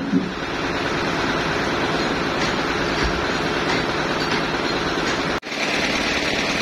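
Band sawmill machinery running steadily with a constant mechanical hum, the saw not cutting. A knock comes at the very start, and about five seconds in the sound drops out for a moment and comes back with a higher hiss added.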